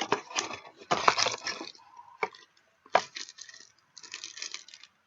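Packaging and parts of a GoPro Hero 3 camera box being handled: irregular rustles and crinkles with sharp clicks, the loudest click about three seconds in.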